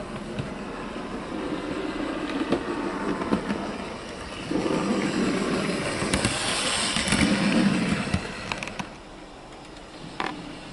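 OO gauge Bachmann USA Dock Tank model locomotive running along the track, its motor and wheels humming and rumbling. The sound grows louder as it passes close by, from about four to eight seconds in, then drops away, with a single sharp click near the end.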